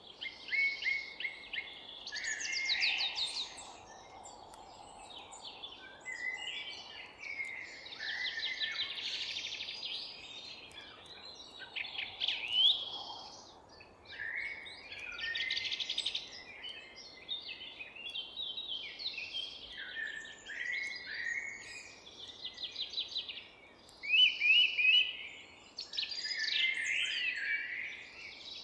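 Forest songbirds singing together, overlapping chirps, whistles and rapid trills with hardly a pause, over a faint steady background hiss. The loudest phrases come about twelve seconds in and again near twenty-four seconds.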